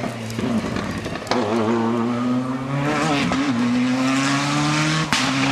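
Rally car engine at full throttle, its note climbing steadily, with brief dips at upshifts around the middle and near the end. The later shift comes with a sharp crack.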